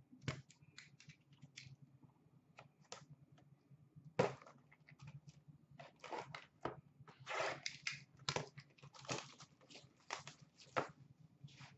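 Trading card pack wrappers being torn open and crinkled by hand, in short irregular rips and rustles, with one sharper tear about four seconds in.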